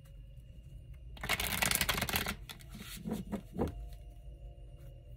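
A deck of tarot cards being shuffled: a dense rush of card riffling lasting about a second, followed by a few short soft knocks as the cards are handled.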